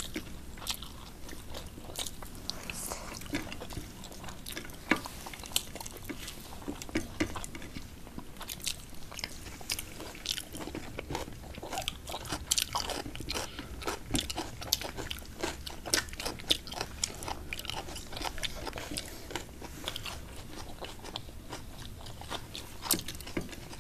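Close-miked eating by hand: chewing and biting rice and curry, with many sharp mouth clicks and crunches at irregular intervals.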